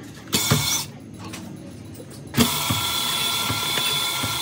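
A couple of short metallic clatters, then about halfway through a cylinder honing machine starts up and runs steadily in a bore of a Fiat tractor's three-cylinder engine block, a grinding machine noise with a high whine.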